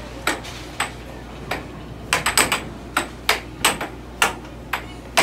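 Air hockey rally: the puck and mallets clacking against each other and the table's rails in quick, irregular hits, some in rapid clusters.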